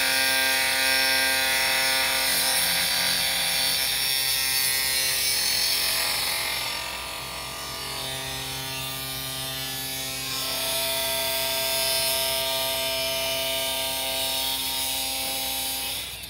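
Right-angle grinder's cutting disc cutting through the metal housing of a hand-crank meat grinder: a steady motor whine with a grinding hiss. The sound eases for a few seconds midway, the whine shifts pitch, and the grinder stops at the end.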